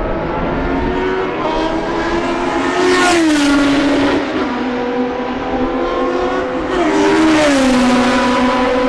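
Historic Formula One racing engines running at high revs as cars go by, the engine note dropping sharply as one passes about three seconds in and another later.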